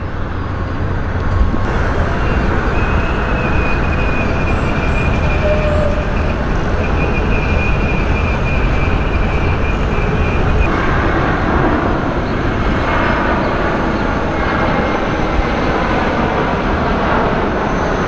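Steady, loud noise of road traffic and construction-site machinery, with a thin high whine held for about eight seconds from a couple of seconds in.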